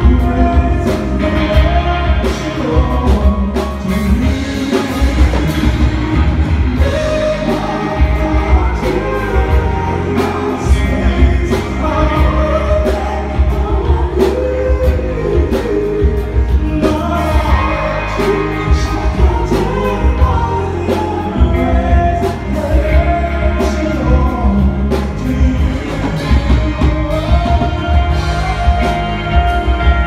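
Live band performing through a PA: a male lead singer over electric guitar with a steady, heavy bass beat.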